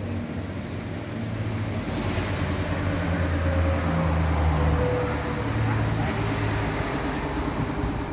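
A motor vehicle's engine running with a steady low hum, growing louder through the middle and then easing off.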